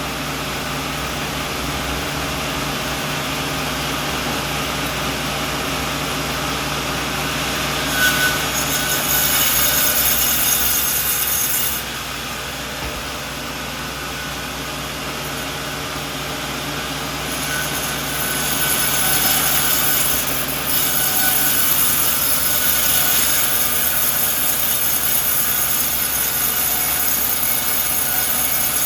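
Sawmill running with a steady engine drone, its blade cutting into a coconut log in two stretches: a cut of about four seconds starting about eight seconds in, and a longer one starting a little past halfway that runs on.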